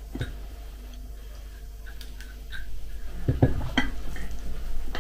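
Metal spoon clinking and scraping against a ceramic bowl while scooping soaked cereal flakes: scattered light clicks, then a cluster of louder knocks about three and a half seconds in.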